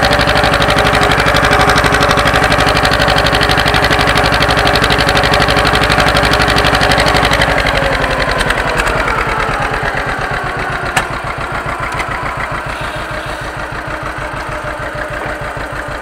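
John Deere 530's two-cylinder engine running hard with the tractor in fifth gear, then throttled back about eight seconds in, its beat slowing and getting quieter.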